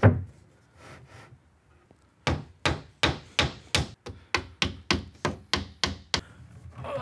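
A plywood panel thumps down onto a plywood cabinet carcass. After a short pause, a small hammer drives a nail into the plywood top with about sixteen quick, sharp taps, roughly four a second.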